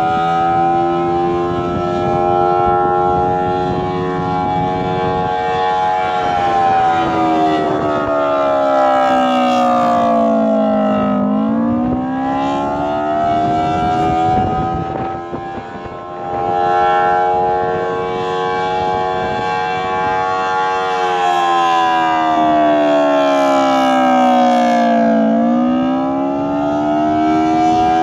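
Electromechanical air raid siren sounding a wail with its motor driving the rotor. The pitch holds, sinks as the rotor slows, then climbs back up as it spins up again; this happens twice, about 14 seconds apart, with a short dip in loudness during the first climb.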